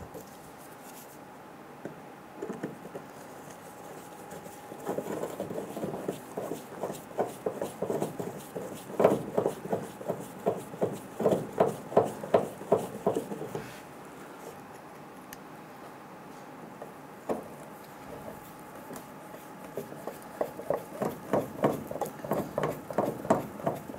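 Screws being turned by hand into the plastic fuel filler neck housing, making runs of light clicks a few per second: a long run in the middle and another near the end.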